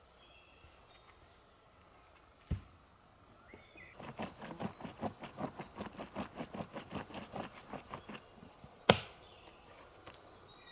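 Rapid, even strokes of a hand tool on wood, about five a second for about four seconds, followed a little later by a single sharp crack, the loudest sound. A dull thud comes a couple of seconds before the strokes begin.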